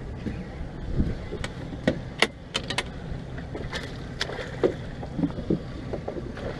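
A hooked snook thrashing at the surface beside a boat: a scatter of short, sharp splashes at irregular intervals, with a few low knocks.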